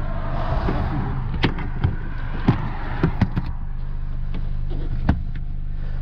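A car engine idling steadily, with about half a dozen sharp knocks and clicks as plastic hoses and fittings are handled against the car.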